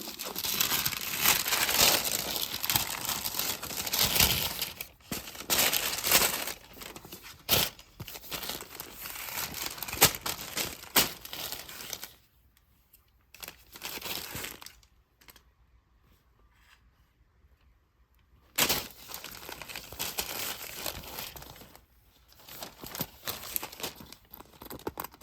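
Packaging wrapping crinkling and tearing as a laptop sleeve is unboxed, handled in uneven bursts with a few sharp snaps. A quiet spell of several seconds falls past the middle before the rustling starts again.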